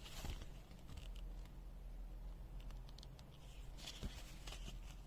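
Faint handling noise: light clicks and short rustling scrapes over a low steady hum.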